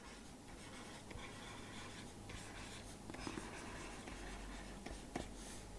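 Faint scratching of a stylus writing on a digital writing pad, with a few light taps, over a low steady room hum.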